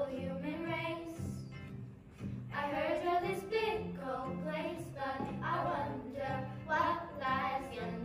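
A small group of girls singing a song together over an instrumental accompaniment, the sung notes held and sliding, with a short pause about two seconds in.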